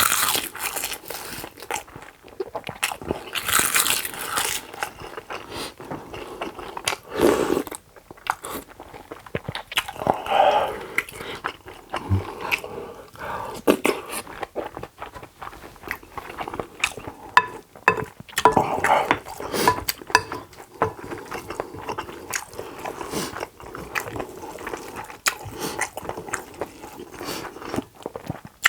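Close-miked eating sounds: a person chewing and biting mouthfuls of Korean food, with many short wet clicks and smacks.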